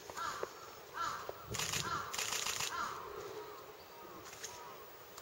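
A bird calling over and over, short calls about once a second, with a louder rustling noise for about a second in the middle.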